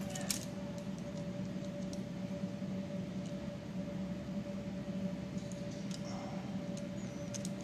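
Steady background hum with a constant tone, over a few faint clicks and ticks as a yellow crimp terminal is handled and squeezed onto a wire with a red-handled crimping tool.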